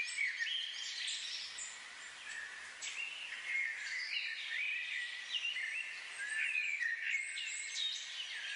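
Birds chirping: many short calls gliding up and down, overlapping continuously.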